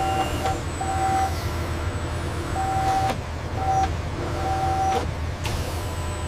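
Steady low hum of factory machinery with a run of irregular electronic beeps, about five of them, short and longer ones, all on the same pitch.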